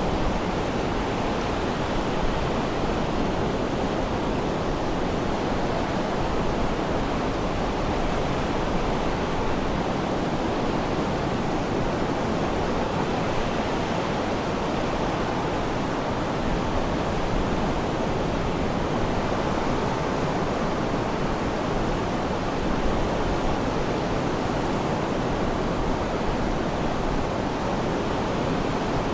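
Sea surf: a steady, even rush of breaking waves with no separate swells standing out.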